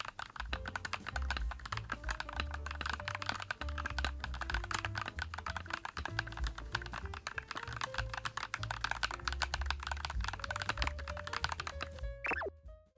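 Fast, continuous typing on a YUNZII X COOLKILLER CK75, a full-acrylic, gasket-mounted 75% mechanical keyboard, with background music underneath. The typing stops about a second before the end, and a brief swooping tone follows.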